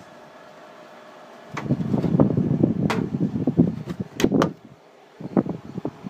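Close handling noise, with rubbing and several sharp knocks around the casing of a small domestic dehumidifier. Underneath, the running dehumidifier's fan gives a faint steady hum, heard alone at the start.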